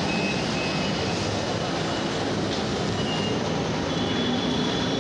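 Compressed natural gas flowing from a CNG station dispenser into a car's CNG cylinder mid-fill: a steady, even rush of noise.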